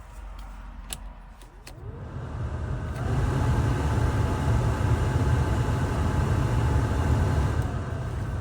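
BMW E30 heater blower motor, freshly fused, spinning up with a rising whine about two seconds in, then running steadily as a whine over a low rumble, dipping slightly in pitch near the end. The owner suspects the motor is seizing up, which blew its fuse.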